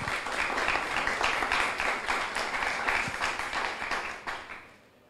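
Audience applauding, a dense patter of many people clapping that fades out about four and a half seconds in.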